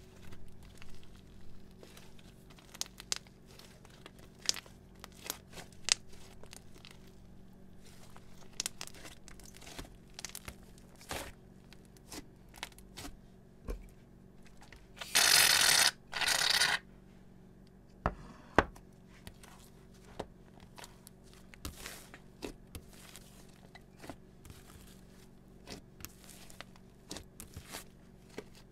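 Thick slime being kneaded and stretched by hand, giving a stream of small sticky clicks and pops. About halfway through, two loud hissing sprays from a spray bottle, each under a second, land on the slime.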